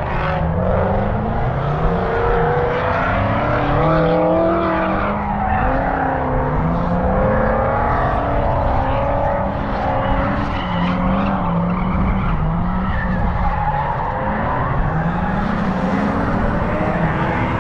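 Cars drifting: engines revving up and down again and again, with tyres squealing and skidding. Wind buffets the microphone throughout.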